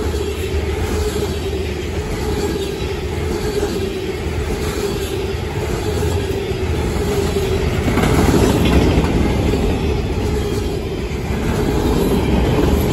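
Freight cars of a CSX manifest train rolling past at close range: a steady rumble of steel wheels on the rails, swelling briefly about eight seconds in.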